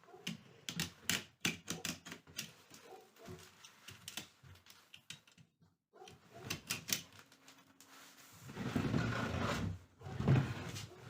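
Irregular run of sharp clicks and taps from handwork on a rattan chair, then a louder rustling scrape about two thirds of the way in.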